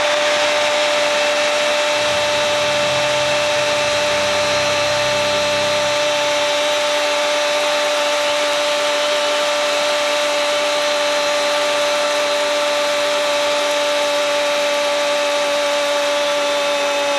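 A Spanish-language football commentator's long, held shout of 'Gol!' at one steady pitch, falling away near the end, over crowd noise.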